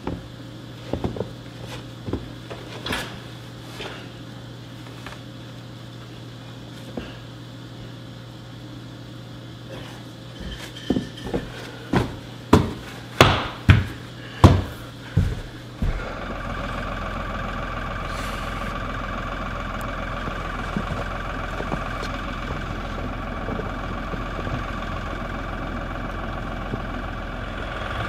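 A run of sharp knocks, about seven in quick succession, then a tractor engine idling steadily from about halfway through.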